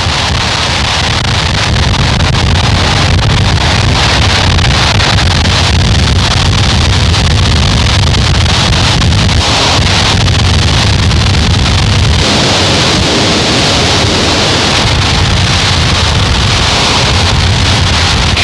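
Harsh noise music: a loud, unbroken wall of distorted noise from analog synthesizer and fuzz and distortion pedals, with a heavy low rumble underneath that thins about twelve seconds in.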